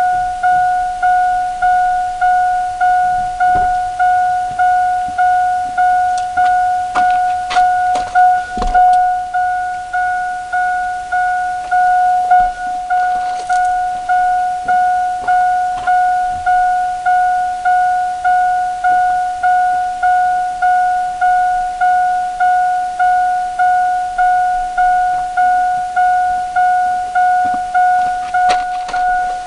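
A vehicle's warning chime ringing: one ding repeated about one and a half times a second, each fading quickly, starting suddenly and keeping on. A few clicks and knocks of handling come a few seconds in.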